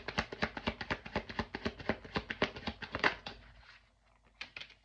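Tarot deck being shuffled by hand: a quick run of card slaps and flicks, about six a second, that stops about three and a half seconds in, then a few separate taps of cards near the end.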